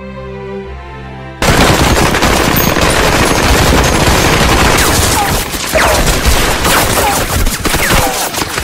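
Soft melodic music for about a second and a half, then a sudden cut to loud, dense war-film gunfire: many automatic weapons firing at once in rapid volleys.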